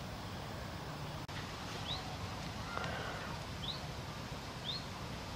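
A small bird chirping: three short, high, rising chirps a second or so apart, over a steady low outdoor rumble.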